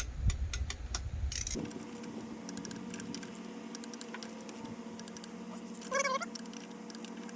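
Scattered metallic clicks of a ratchet and torque wrench tightening the throttle body's nuts and bolts, over a steady low hum. About six seconds in comes one brief high squeak.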